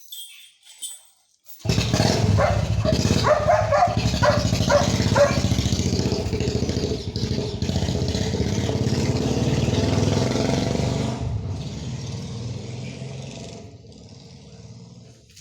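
A motor vehicle engine running loudly, starting suddenly, with a run of short sharper blips early on, then fading out over the last few seconds.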